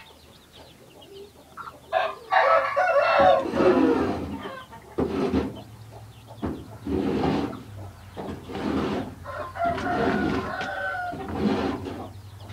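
Adult chicken calling loudly: a long call starting about two seconds in, then a string of shorter repeated calls, some with a drawn-out note.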